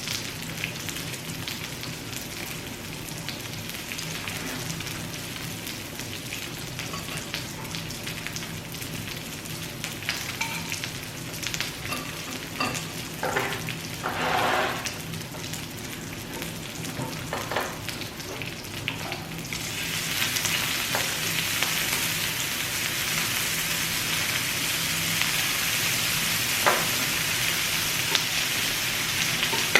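Pork belly (samgyeopsal) sizzling as it fries in its own fat, a steady hiss that grows clearly louder about two-thirds of the way through. A few short clicks and knocks sound over it.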